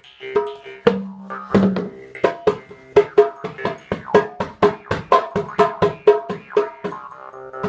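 Jaw harp plucked in a quick, even rhythm, about three to four twangs a second, each ringing with a droning pitch and shifting overtones.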